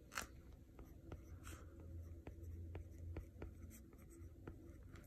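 Faint writing on a tablet touchscreen: about ten light, irregular taps and ticks on the glass as text is entered.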